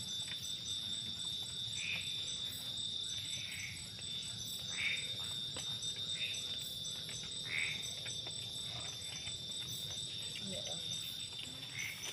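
Forest insect chorus: a steady high-pitched shrill with rapid pulsing chirps over it, and a short call that repeats about every second and a half.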